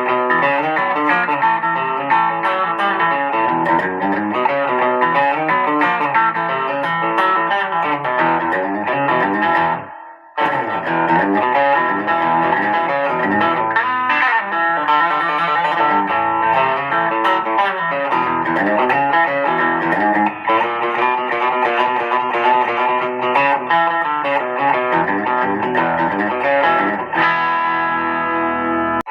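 A 335-style electric guitar played through an amplifier, running through changing notes and chords as a tone sample. The playing stops for a moment just after ten seconds in, then goes on.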